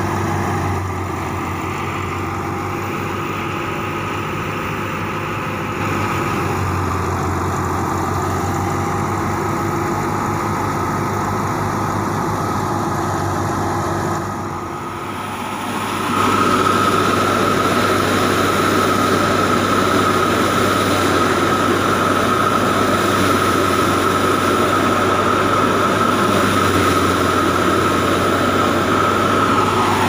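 Tractor-driven wheat thresher running steadily under load, the tractor's diesel engine and the spinning threshing drum making a constant drone with a strong low hum. About halfway through it becomes louder and closer, with a steady high whine on top, as wheat stalks are fed into the machine's intake.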